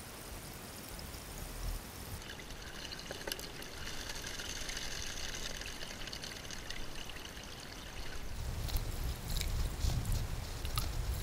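Shallow creek water trickling and pouring around a metal gold sluice box set in the streambed. After about eight seconds a low rumble comes in, with a few sharp clicks.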